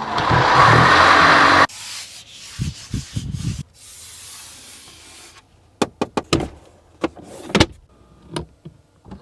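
Mercedes-Benz GLC 300 Coupe body and interior sounds: a loud rushing noise that cuts off after under two seconds, a softer hiss with a few dull thuds, then a quick run of sharp clicks and knocks near the end.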